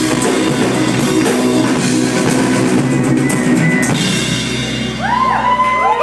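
Live rock band playing loud and full: electric guitars and drum kit. Near the end the playing thins out and a few high sliding tones rise and fall.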